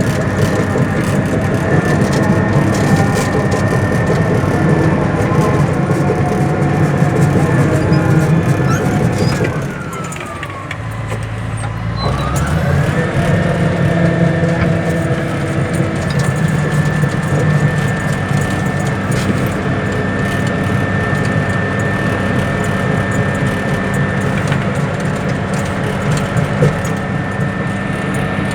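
Bulldozer's diesel engine running steadily with a high whine over it; about ten seconds in the revs drop and the whine falls in pitch, then it climbs back up a couple of seconds later and holds steady again.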